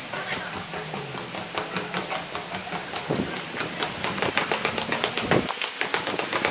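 Footsteps of a person walking briskly along a footbridge and then down a staircase: a quick run of sharp taps that come faster in the second half. A faint low hum sits underneath for the first couple of seconds.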